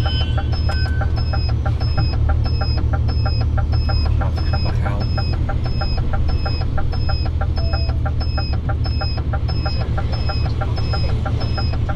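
DAF CF truck's diesel engine idling steadily, with the indicator ticking evenly about twice a second over it.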